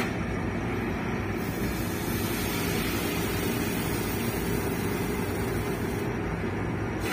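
Steady low drone of a car ferry's engines and machinery, even in level throughout.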